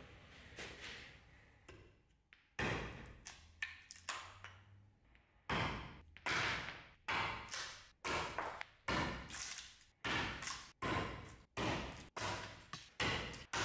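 A restored Soviet survival machete chops into a wooden board on a chopping block. From about two and a half seconds in there is a rapid series of sharp chopping strikes, each dying away quickly, at roughly two a second by the middle of the clip.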